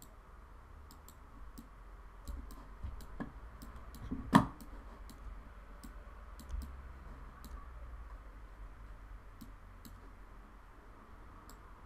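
Faint, irregular clicks of a computer mouse being worked, over a low hum, with one louder thump a little over four seconds in.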